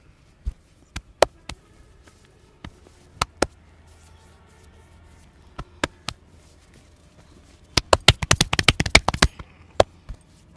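Sharp slaps, cracks and clicks of a hand-on-head massage, struck one at a time at uneven intervals. About three-quarters of the way through comes a fast flurry of hand strikes lasting about a second and a half, then two more single cracks.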